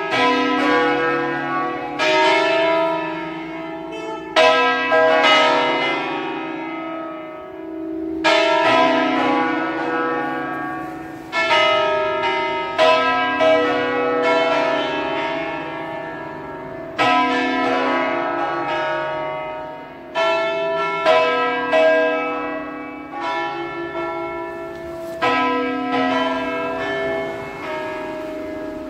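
A five-bell church peal tuned in B, played as a Lombard bell concerto. The bells strike one after another in melodic runs, each note ringing on and overlapping the next, over the hum of the big tenor bell.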